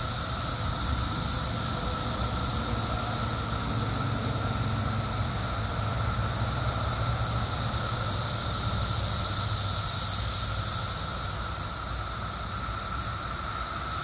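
Chorus of Brood X periodical cicadas (Magicicada): a dense, steady high-pitched drone with a weaker, lower steady whine beneath it, the whole chorus easing slightly near the end.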